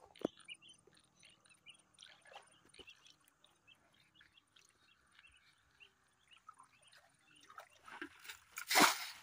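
Faint birds chirping in the background, then a loud splash in shallow muddy water near the end.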